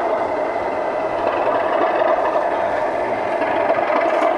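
Model diesel locomotives pushing a prototype snowplough along the track, a steady whir and clatter of motors and wheels on rail.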